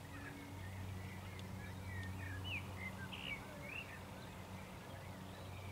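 Birds chirping, a quick run of short calls that bend up and down in pitch, thinning out after about three seconds, over a steady low hum.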